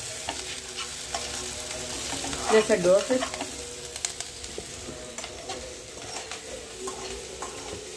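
Capsicum and onion frying in a metal kadhai, a steady sizzle, with a ladle stirring and scraping the pan in small clicks and scrapes. A short wavering call, a voice or a bird, stands out about two and a half seconds in.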